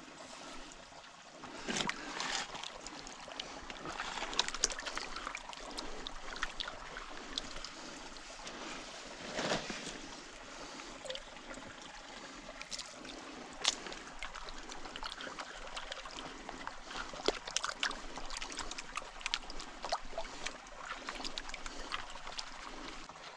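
Water sloshing and swirling in a gold pan while small stones rattle and scrape against it, as a gravel sample is washed down to look for gold. A few louder swashes stand out, about two seconds in and again near the middle.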